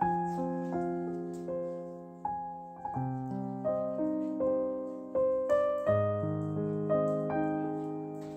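Slow, gentle piano music: a melody of single struck notes over held chords, with the bass moving to a new note about every three seconds.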